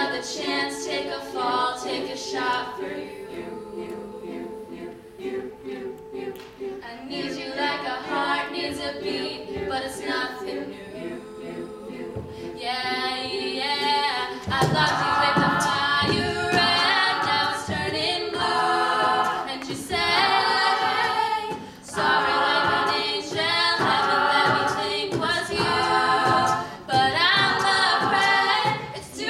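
Mixed-voice a cappella group singing in close harmony, held chords with a lead line over them. About halfway through it grows fuller and louder as a steady vocal-percussion beat comes in under the voices.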